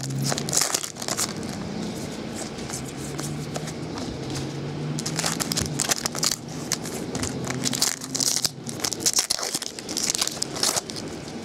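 Foil baseball card packs being torn open and crinkled by hand, in several bursts of crackly rustling.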